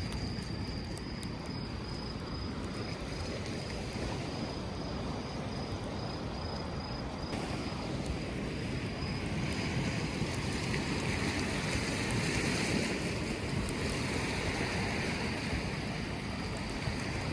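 Waves washing on the shore and wind, swelling louder in the second half. Faint crackles come from the campfire in a steel fire pit, and an insect chirps a high pulsing note through the first half.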